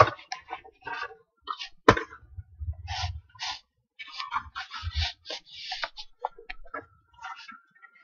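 Scraping and rustling handling noise on a handheld camera's microphone, with a sharp knock at the start and another about two seconds in, and a few low rumbles.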